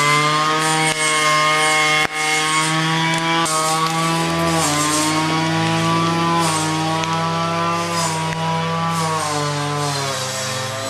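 Music of buzzy, sustained instrument notes, such as a distorted electric guitar, held over a low drone and stepping to a new pitch every second or two.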